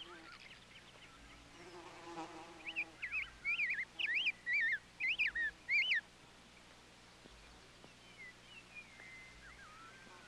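A songbird singing a fast warbling phrase of quickly rising and falling whistled notes for about three seconds, starting a couple of seconds in. A short low buzzy call comes just before it.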